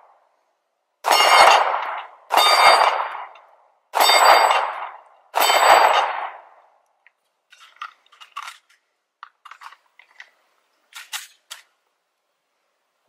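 Four 9mm shots from a Sig Sauer P320 Compact pistol, about a second and a half apart, each with the clang of a hit on a steel target. Fainter metallic clinks and rings follow over the next several seconds.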